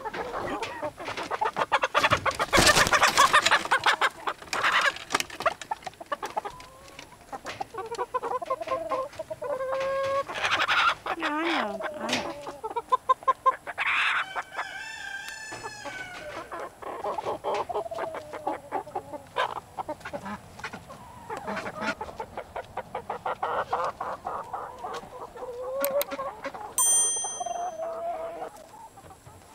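A mixed backyard chicken flock clucking and squawking as juvenile hens are put in with the older birds, with a loud flurry of squawking about two seconds in. An adult rooster crows once around the middle.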